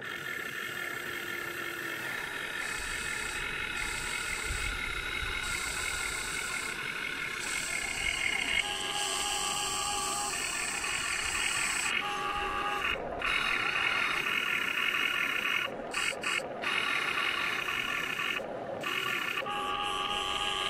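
Huina 1580 RC excavator working its motors: a steady mechanical whine whose tone changes in steps every few seconds as different functions are driven, with a few brief dropouts in the second half.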